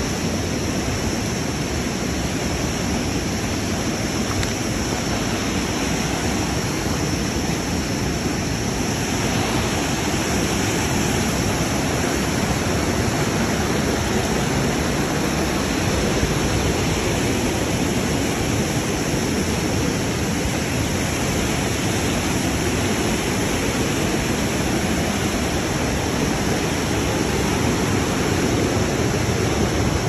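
Mountain river water rushing, a loud steady noise of fast-flowing water.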